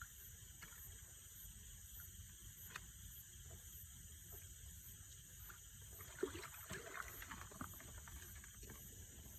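Faint night insect chorus, a steady high-pitched trill with a regular pulsing on top, and a few faint sharp knocks about six seconds in.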